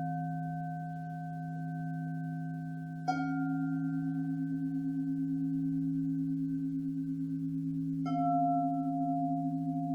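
Singing bowls ringing together in long held tones, a low one sounding throughout. One bowl is struck about three seconds in and another near the end, and each strike leaves a long ring that wavers in loudness.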